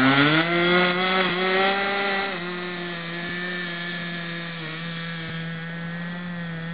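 60-size model airplane engine running at high throttle for an RC trainer's takeoff, a steady high-pitched buzz. Its pitch rises in the first half second. About two seconds in it drops slightly and gets a little quieter, as the plane moves away.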